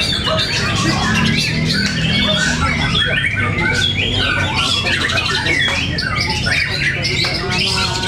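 Several caged white-rumped shamas (murai batu) singing at once, a dense, continuous tangle of whistles, rapid chatters and harsh calls. The birds are singing against one another, as in a shama fighting-song contest.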